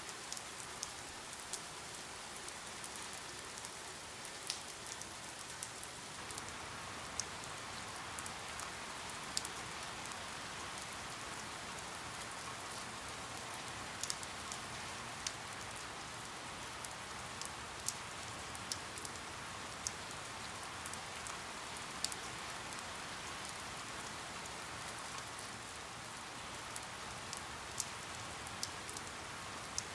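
Steady rain falling, an even hiss with scattered sharp drop ticks on a hard surface.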